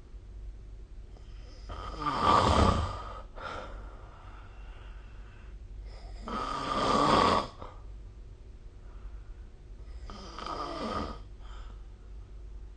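A person snoring in sleep: three loud rasping snores about four seconds apart, the last one softer.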